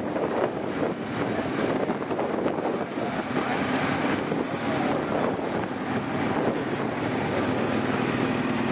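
Wind buffeting the microphone in gusts. Underneath it runs a steady engine idle.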